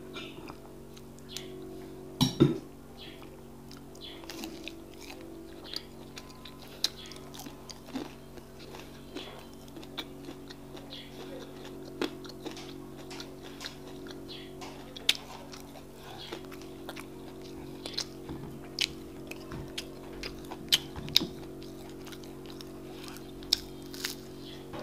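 Close-miked eating sounds: chewing and moist mouth clicks from eating akara (fried bean fritters) and custard. A loud clink comes about two seconds in, and a steady low hum runs underneath.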